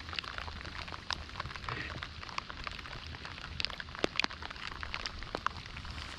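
Rain falling, with many irregular drop ticks and small pops over a steady hiss.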